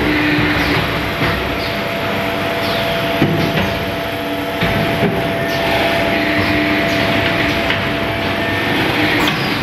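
Automatic flour bagging machine line running: a loud, dense mechanical clatter, with a steady whine and a lower hum that switches on and off every second or so, and short squeaks and clicks over it.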